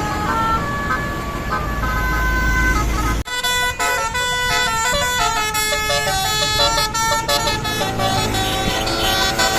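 Tour bus's Basuri telolet horn, a multi-trumpet melody horn, playing a tune of stepped notes over engine and road noise. About three seconds in the sound breaks off abruptly and a louder, fuller run of horn notes takes over.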